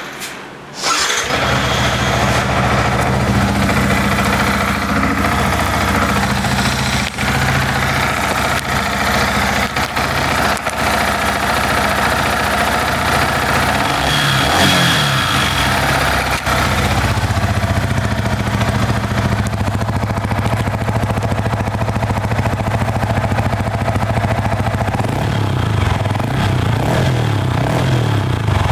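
Yamaha MT15's 155 cc liquid-cooled single-cylinder engine starting about a second in and then idling steadily. The engine has been freshly rebuilt with new crankshaft bearings, cylinder block and valves after overheat damage, and it runs in a state the mechanic calls perfect.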